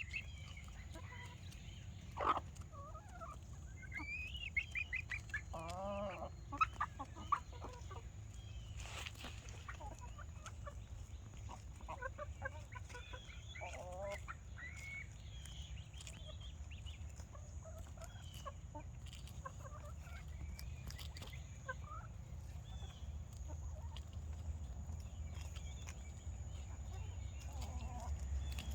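Backyard chickens clucking, short calls scattered throughout and busiest in the first several seconds, with a few sharp clicks among them. A steady low rumble runs underneath.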